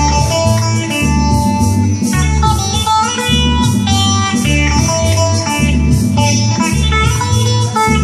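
Electric guitar playing an instrumental passage over a repeating bass line and a steady beat.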